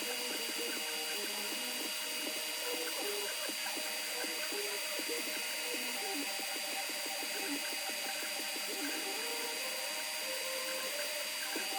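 Creality Ender 3 V2 3D printer printing: its stepper motors whine in short tones that jump from pitch to pitch every fraction of a second as the print head moves, over a steady high-pitched whine.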